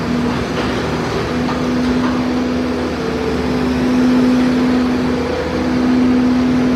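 Diesel engine of a Bobcat S250 skid-steer loader running under load as it works its bucket, a steady drone that dips briefly twice.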